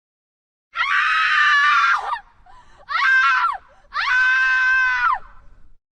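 A woman screaming in fear: three high-pitched screams, the second one shorter, each falling off in pitch at its end.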